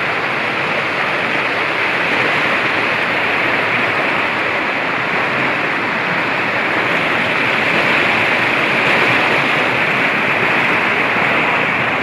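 Fast water of a rocky stream rushing over boulders in small cascades: a steady, loud rush of white water.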